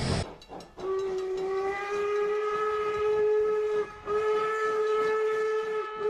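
Locomotive whistle blowing a long, steady chime note. It starts about a second in and breaks off briefly twice, near the middle and near the end.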